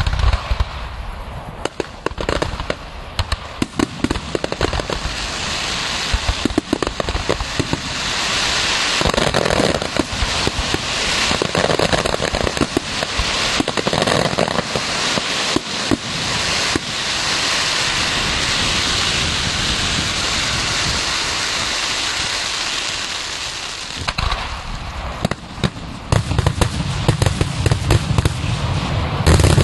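Fireworks display: a continuous barrage of shell bursts, with a long stretch of dense crackling in the middle and a heavy run of bangs near the end.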